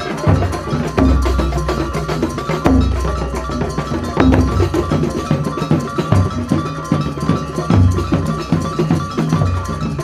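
Live Banyuwangi gamelan-style procession music: hand drums and bronze pot gongs and gongs played together in a busy, fast rhythm, with a deep drum or gong stroke about every one and a half to two seconds.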